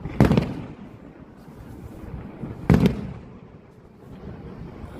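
Fireworks shells bursting: two loud bangs about two and a half seconds apart, each trailing off in a rumbling echo.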